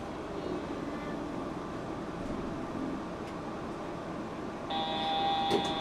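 Steady hum and rumble inside a Yurikamome rubber-tyred automated train car. Near the end a steady electronic chime tone starts, with a sharp click just after.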